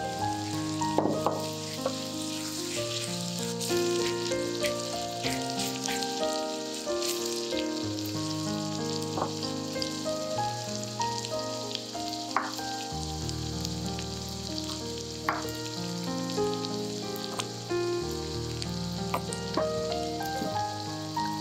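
Diced red onion frying in a pan of hot oil: a steady sizzle with scattered pops and crackles, over soft background music.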